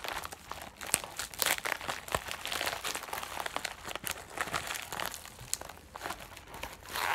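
White padded poly mailer crinkling and rustling in irregular crackles as hands tug and pick at it, trying to tear it open.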